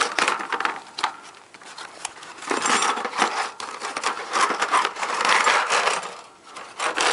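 Packaging of a Remington magazine extension kit being handled and rummaged through: cardboard and wrapping rustling and crinkling, with small knocks and clicks of the parts. The rustling is densest from about two and a half seconds in until near the end.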